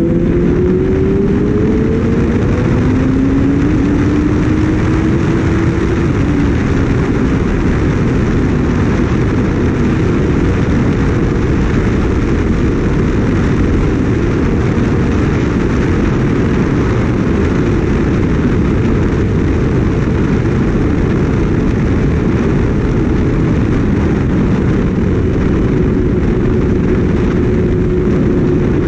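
Heavy wind rush on the microphone of a Kawasaki Ninja ZX-6R sport bike being ridden at speed, with the bike's inline-four engine underneath, its pitch rising over the first few seconds and then holding.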